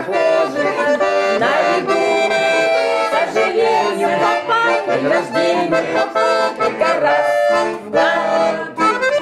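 Bayan (Russian chromatic button accordion) playing a song, with voices singing along.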